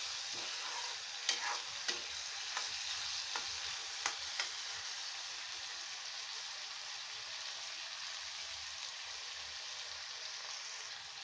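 Potato sticks frying in oil in a metal kadai, an even sizzle. In the first few seconds a steel spatula clicks and scrapes against the pan a handful of times as it stirs them, then only the steady sizzle goes on.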